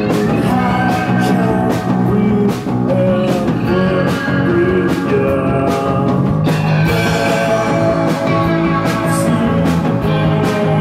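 Rock band playing live: a man singing over electric guitar and drums, with a steady beat about twice a second.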